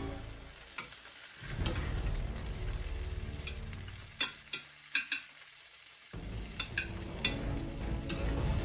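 Leek boxes (Chinese chive pockets) sizzling in oil in a frying pan, with scattered sharp pops and crackles.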